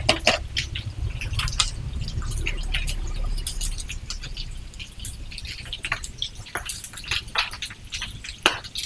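Boiled quail eggs being peeled by hand: irregular small clicks and crackles of the shells cracking and coming away, with a low rumble in the first few seconds.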